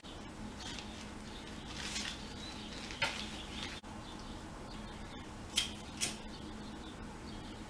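Crinkling of a small plastic bag and a few sharp clicks and taps of small objects handled on a desk, a pair of clicks coming close together over halfway through, over a steady low hum.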